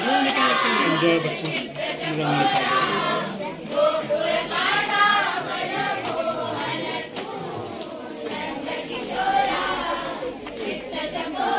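A group of students singing a devotional song together in chorus.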